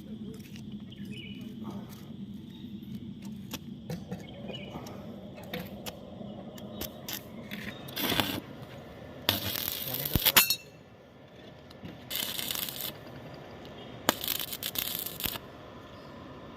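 Metalwork on excavator bucket teeth: scattered metal clicks and clinks, then several short harsh bursts of scraping noise, the loudest about ten seconds in.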